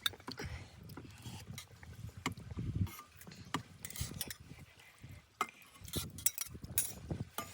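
Light, scattered clicks and knocks of chopsticks and a pot or bowl while ramen is being eaten, over a low uneven rumble.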